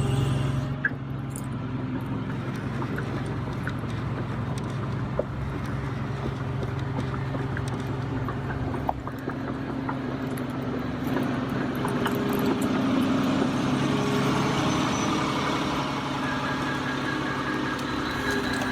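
Model excavators at work: a steady, engine-like mechanical hum with a few small clicks, growing louder and busier about halfway through.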